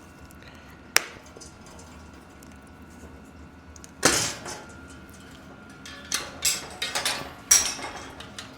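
Clicks and metallic clanks of bicycle parts and tools being handled during a mountain-bike tire change: a sharp click about a second in, a louder clank about four seconds in, then a run of clanks and rattles near the end.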